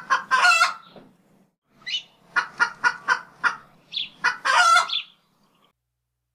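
Chicken cackling: a long squawk, then a quick run of short clucks ending in another drawn-out squawk.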